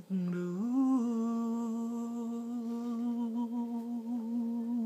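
A man's voice, unaccompanied, holding the final note of a sung song. It starts with a short lower note, rises about a second in, and then holds the higher pitch steadily with a slight waver, in a hummed tone.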